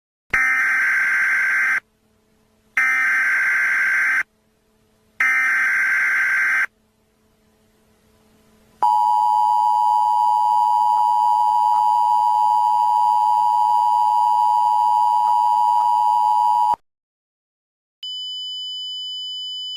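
Emergency Alert System tones. First come three short screeching bursts of SAME header data, each about a second and a half long with about a second between them. Then the two-tone EAS attention signal holds steady for about eight seconds. After a short pause, a quieter steady high beep starts near the end.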